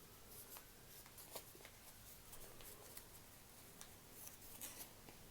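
Faint crinkles and ticks of origami paper being pinched and creased by hand, a few scattered small clicks over near silence.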